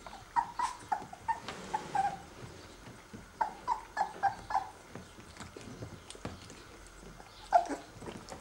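Nineteen-day-old Basset Artésien Normand puppies whimpering: short, high squeaky cries in two quick runs of about half a dozen, then one louder cry near the end.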